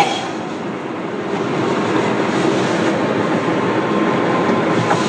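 Steady road and engine noise of a moving car, heard from inside the cabin with a window down.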